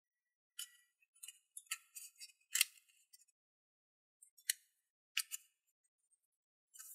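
Origami paper crinkling and rustling as fingers fold and press creases into it: a string of short, crisp crackles, the loudest about two and a half seconds in.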